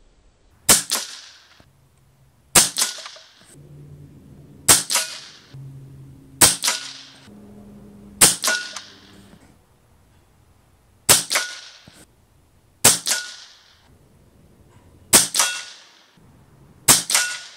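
RTI Arms Priest 2 .22 PCP air rifle firing nine shots, each a sharp crack with a short ringing tail, about two seconds apart with one longer pause about halfway through.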